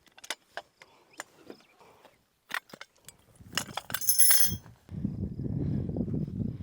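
Scattered metallic clicks and knocks from steel target hardware being handled. About four seconds in comes a louder clanking with a brief metallic ring. After that, a low rumbling noise.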